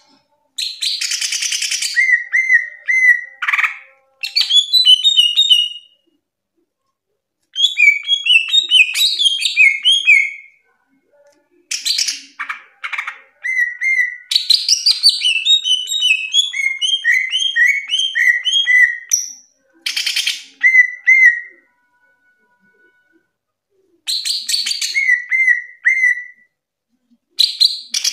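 Caged cucak ijo (green leafbird) singing loudly in full song (gacor): phrases of a few seconds, each opening with a harsh rasping note and going on as runs of quick, repeated, clear whistled notes, with short pauses between phrases.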